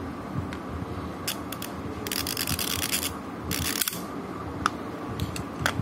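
Whirlpool refrigerator defrost timer being turned by hand, its gear train rasping and ratcheting in two spells, with a few small clicks. This is the timer being advanced so that its switch changes over to the defrost-heater contacts.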